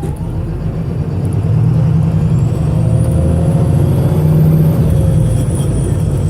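VDL SB200 bus's diesel engine pulling hard under full throttle, running rough with a misfire, getting louder about a second and a half in. A faint high whine rises and then falls over it.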